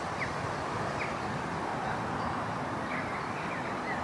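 Open-air ambience: a steady low background rumble with a few short, high bird chirps scattered through it.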